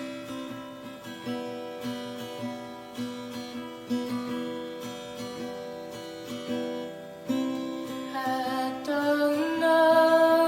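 Song with steady acoustic guitar picking and strumming; a singing voice comes in about eight seconds in.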